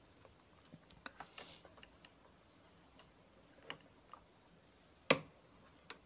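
Faint scattered clicks and light rustles of marker pens being handled and set down on the tabletop beside a paper notebook, with one sharper click about five seconds in.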